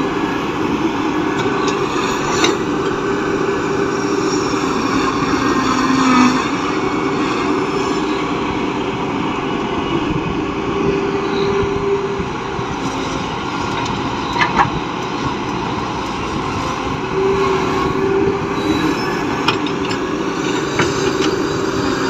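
Caterpillar excavator at work: engine running steadily under a droning tone that comes and goes, with a few sharp knocks.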